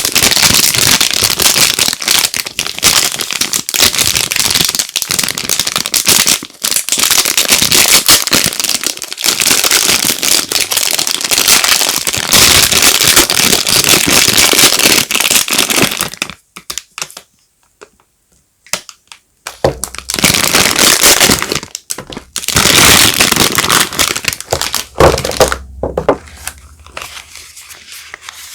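Soap bar packaging crinkling as it is handled and unwrapped, loud and dense, with a break of about three seconds past the middle and a shorter stretch after it.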